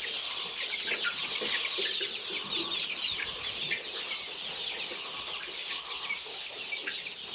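A flock of young chickens in a poultry house, many birds chirping and clucking at once in a steady, dense chorus.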